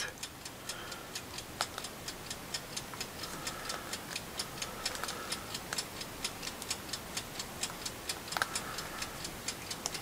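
Steady rapid ticking of a clock, about four ticks a second, with a few louder light clicks mixed in.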